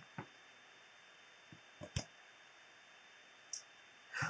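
A few faint, short clicks scattered over quiet room hiss, with a slightly longer one near the end.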